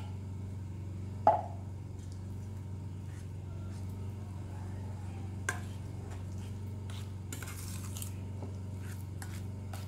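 Metal spoon scraping and clinking against a tin can and a stainless-steel pot as thick tomato paste is scooped out and worked in the pot, with one sharp clink about a second in. A steady low hum runs underneath.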